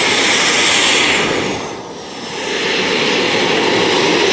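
Miniature turbine engine of a radio-controlled Super Scorpion model jet running at high power, a loud hiss with a thin high whine, as the jet rolls on the grass. The sound dips briefly about halfway through, then comes back up.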